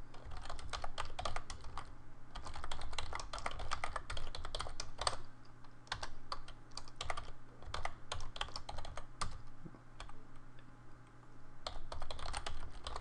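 Typing on a computer keyboard: quick runs of keystrokes broken by short pauses, a little before halfway and again a little past three quarters of the way. A steady low hum sits underneath.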